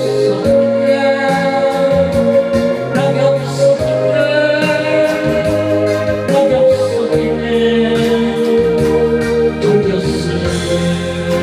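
Music from the ending of a slow Korean pop ballad: long held notes over a steady bass line.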